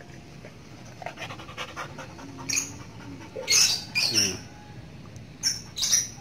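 Large brindle hunting dog, a dogo–pitbull cross, panting heavily, with loud, short breathy huffs several times in the second half.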